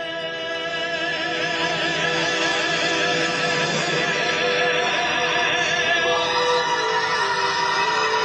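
Music accompanying a Sichuan opera face-changing act: long held notes with a slight waver, swelling a little over the first two seconds and changing pitch a few times.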